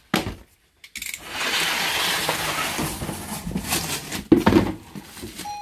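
A box cutter slicing down through the corrugated cardboard wall of a pallet box: a long rasping cut of about three seconds, followed by a couple of knocks against the cardboard about four seconds in.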